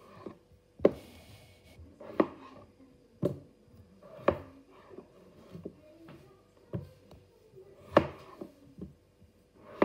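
Kitchen knife chopping raw peeled potatoes into chunks on a plastic chopping board: sharp knocks of the blade hitting the board, irregularly spaced about a second apart, some louder than others.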